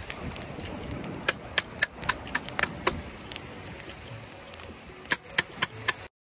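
Wood campfire crackling, with sharp irregular pops and snaps over the low rush of the flames; the sound cuts off suddenly near the end.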